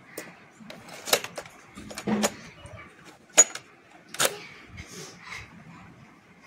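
Sharp plastic clicks and clacks from a Philips RM 170 mono cassette recorder being handled: the cassette door and a tape being put in and snapped shut, and the tape-function keys pressed. About half a dozen separate clicks, the loudest a little past the middle.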